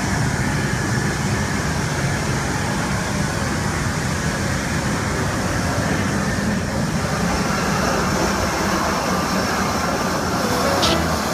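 Steady mechanical roar of running engines, even throughout, with a few short sharp clicks near the end.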